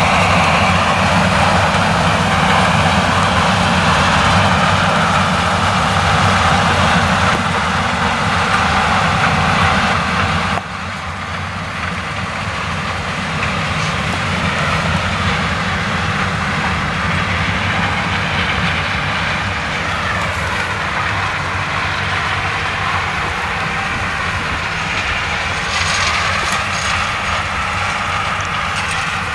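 Claas Lexion 760 TT combine harvester running under load, harvesting standing maize with a nine-row Geringhoff corn header. A loud, steady drone of engine and crop-processing machinery drops suddenly in level about ten seconds in.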